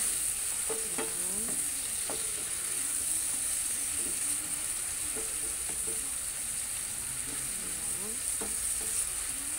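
Chunks of beef sizzling in a frying pan while a spatula stirs and turns them, with a few sharp clicks of the spatula against the pan.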